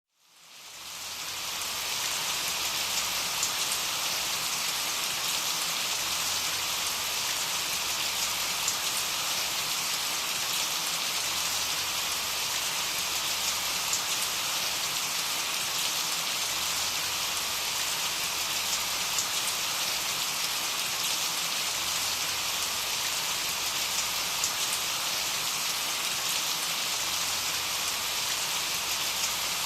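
Steady rain falling, fading in over the first second or two, then an even, unbroken hiss with a few faint drop ticks.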